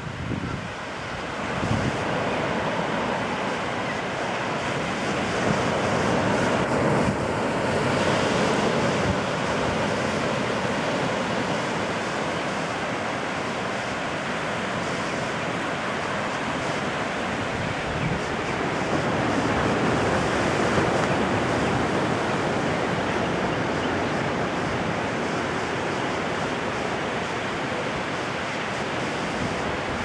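Small ocean waves breaking and washing up a sandy beach: a steady surf wash that grows louder twice as waves break, with some wind buffeting the microphone.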